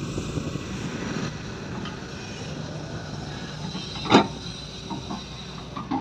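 Matador Shantui excavator's engine running steadily under digging load while its bucket works wet soil. A single sharp knock about four seconds in is the loudest sound, with a couple of smaller knocks near the end.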